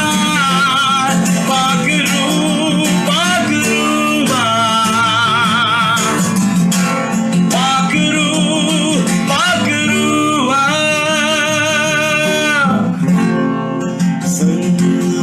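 Live worship music: guitar accompaniment under a long, held melody line that wavers in pitch. The melody drops out about thirteen seconds in, leaving guitar strumming.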